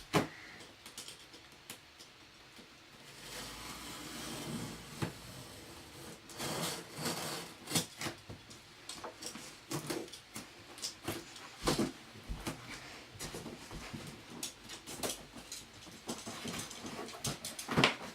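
A cardboard box being opened and handled: scattered clicks, knocks and scrapes, with a stretch of rustling about three to five seconds in.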